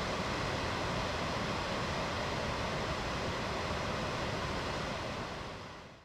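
Gullfoss waterfall on the Hvítá river: a steady rush of heavy falling water, fading out near the end.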